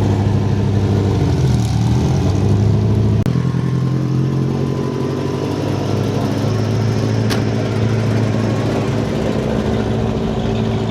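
Car engine idling steadily and close, with a lumpy, even rumble. The sound changes abruptly about three seconds in, as at a cut, then the idle carries on.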